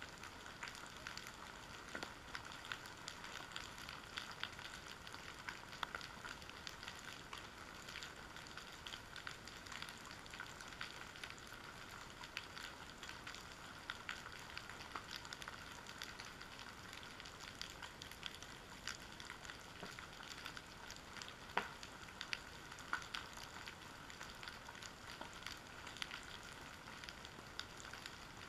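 Underwater crackle on the seabed: a steady, dense patter of tiny clicks and pops, with a few sharper clicks standing out, the loudest about two-thirds of the way through.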